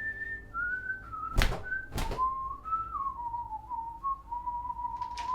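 A person whistling a slow tune, one clear note at a time, starting high and stepping down to a lower held note. Two sharp knocks come about a second and a half and two seconds in.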